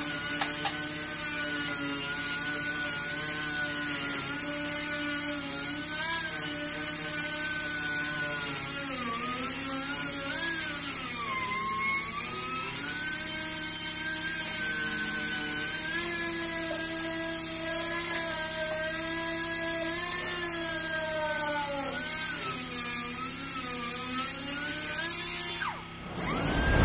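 Astro orbital sander running at high speed, a steady whine whose pitch drifts up and down as the speed varies. It cuts out briefly near the end.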